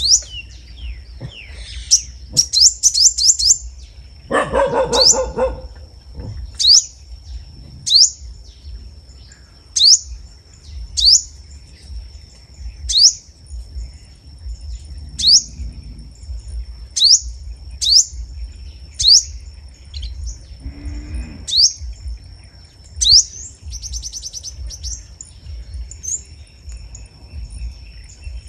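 A small songbird repeating a sharp, high, downward-slurred call note about once a second, with a couple of quick twittering trills. A dog barks once about five seconds in, and a thin steady high tone runs underneath.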